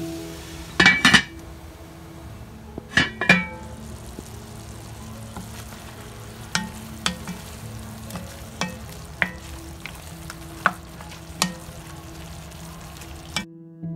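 Curry chicken sizzling in an enamel pot while a wooden spoon stirs it, knocking against the pot: a few sharp knocks about a second in and again around three seconds in, then single knocks every second or so. The sound cuts off suddenly near the end.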